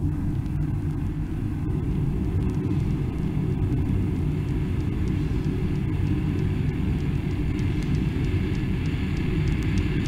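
Low, steady rumbling drone of the noise intro on a 1991 deathgrind EP, with no drums or vocals; faint high ticks and thin tones creep in over the last few seconds.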